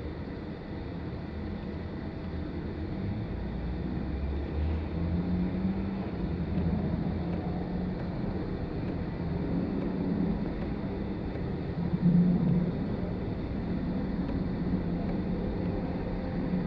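Jet airliner engines running at low power, a steady low rumble that swells briefly about twelve seconds in. The source is most likely a Boeing 777-200.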